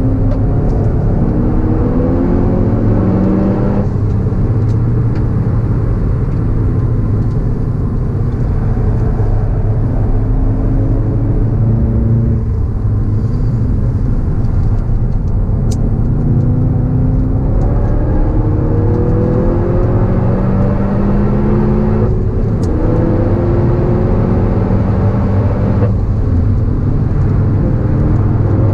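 Volkswagen Golf GTI Clubsport S's turbocharged 2.0-litre four-cylinder pulling hard under full throttle. The engine pitch rises and drops sharply at upshifts about four seconds in and twice near the end, over a deep steady rumble.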